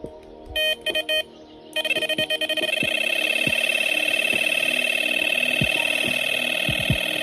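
Electronic carp bite alarm sounding a run. A few short beeps come about half a second in, then from about two seconds it goes into a fast, unbroken stream of beeps as line is pulled off: a carp taking the bait.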